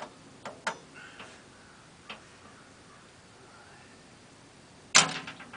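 A few light metal clicks of a wrench working a stuck nut, then about five seconds in a single loud metal clunk that rings briefly as the heavy milling machine body, hanging in its sling, slides down a little.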